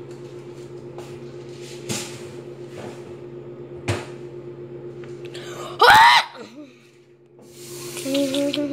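Microwave oven running on its popcorn setting with a steady hum, and a couple of sharp pops of kernels bursting. A loud, brief voice cry comes about six seconds in, and the hum stops shortly after.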